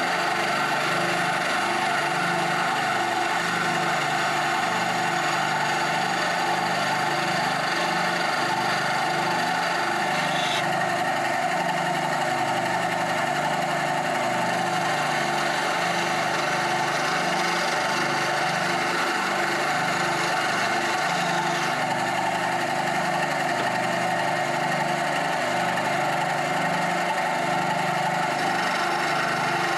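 Bandsaw running steadily while cutting a Christmas tree shape out of African mahogany.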